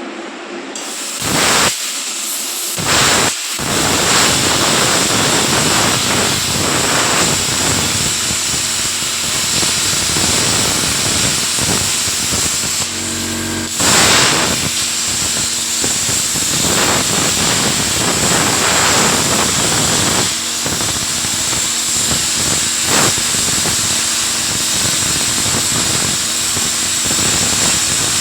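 A CUT 125 IGBT inverter plasma cutter cutting, a loud rushing hiss and crackle of the arc and air jet with a steady high whine over it. It starts with two short bursts in the first few seconds, then runs on continuously with a brief surge about halfway.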